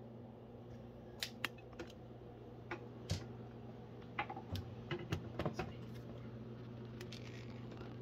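Irregular light clicks and taps, handling noise as the camera is moved around the glass enclosure, over a steady low hum.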